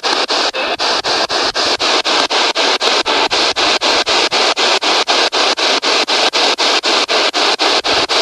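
P-SB7 spirit box sweeping rapidly through radio stations: loud hissing static chopped into short bursts about five times a second, with a thin steady whistle underneath.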